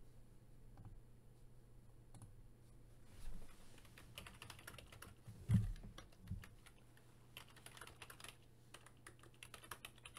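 Faint computer keyboard typing in quick runs of clicks, with a dull thump about five and a half seconds in.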